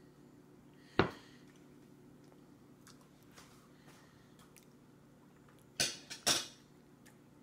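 Mealtime noises from a baby being spoon-fed in a high chair, over a steady low room hum: a sharp click about a second in, then two short knocks close together a couple of seconds later.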